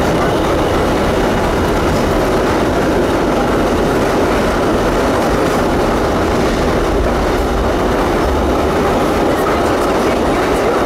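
Vintage New York City subway train of R12, R15 and R33 cars running through a tunnel: a steady, loud rumble of wheels on track that holds an even level throughout.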